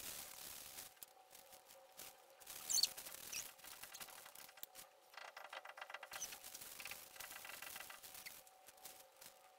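Faint rubbing and rustling as a plastic-gloved hand wipes stain onto a small wooden piece over newspaper, with a sharp click about three seconds in and a short, fast rattle around five to six seconds in.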